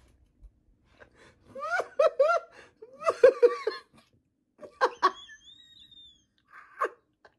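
A person laughing hard in bursts of short 'ha' pulses, with a thin high squeal in the laughter about five seconds in and a last short laugh near the end.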